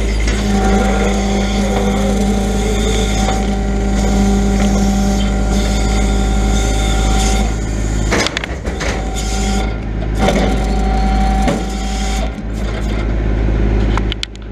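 Grapple truck's engine and hydraulic loader running with a steady hum, with a few knocks and shifts in the sound about halfway through as the loader is worked.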